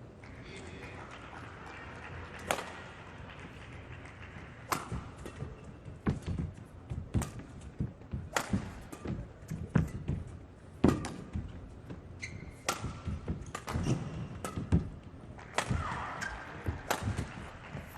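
Badminton rally: a racket strikes the shuttlecock with a sharp crack every one to two seconds, over the thuds of players' footsteps and lunges on the court floor.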